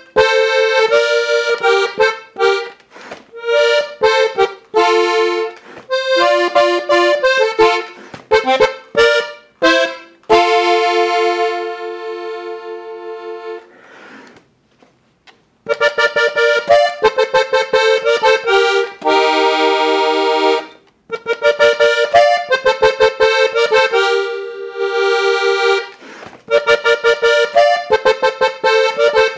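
Parrot button accordion tuned in F, played solo: quick melodic runs over chords, then a held chord that fades away about halfway through, a short pause, and the playing starts again. The seller describes the instrument as free of air leaks and damaged reeds.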